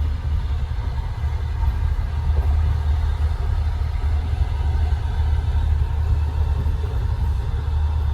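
Steady low rumble of a passenger train running, heard from inside a closed sleeper compartment.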